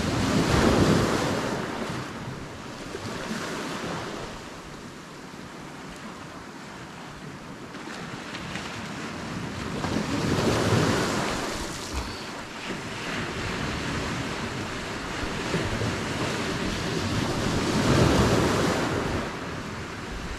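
Sea waves washing in, rising in three swells about eight seconds apart, with wind noise on the microphone.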